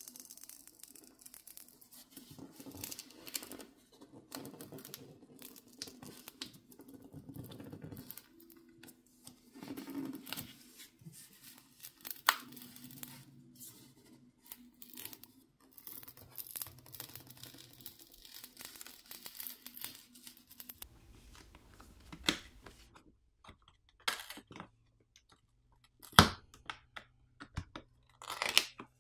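A plastic pry pick working along the seam of a Samsung Galaxy A16 5G's plastic back cover, with soft crackling and scraping as the heat-softened adhesive beneath gives way. In the last few seconds there are several sharp clicks and snaps as the cover comes loose.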